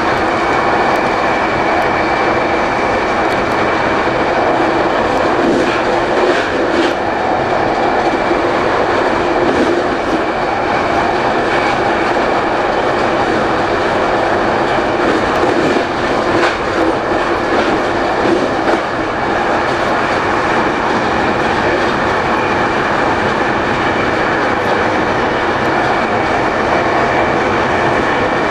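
Train running steadily at speed on the rails, heard from inside its rear cab: a constant rumble of wheels on rail with a faint high whine and occasional light clicks over rail joints.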